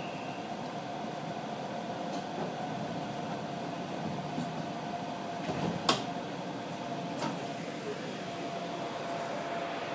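Inside a standing Iyo Railway 3000-series electric train: a steady electric hum over a low rumble, with a few clicks and one sharp knock about six seconds in.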